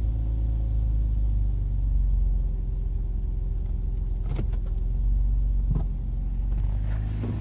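Infiniti G35's 3.5-litre V6 idling in gear with a steady low drone and a few sharp taps in the later seconds. This is the shudder-and-tap that comes with engaging the gear, which the owner thought might be an exhaust leak.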